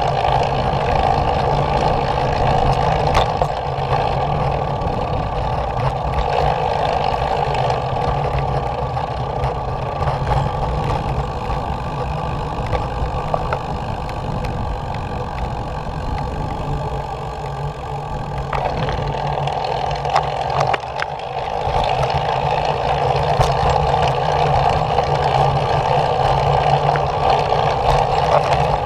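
Skateboard wheels rolling steadily over a concrete path, a continuous rumble with a few sharp clicks.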